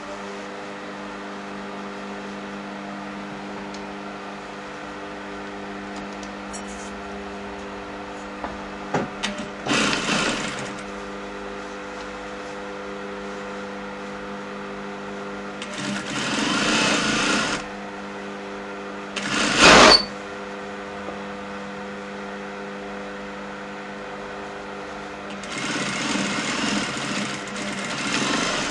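Electric sewing machine stitching a seam in several short runs, about ten seconds in, around sixteen seconds, briefly near twenty seconds, and again for the last few seconds, over a steady hum that continues between the runs.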